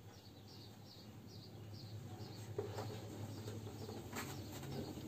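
Faint chirping of a small bird, short high falling notes repeated about twice a second, over a steady low hum. A few soft knocks come later on.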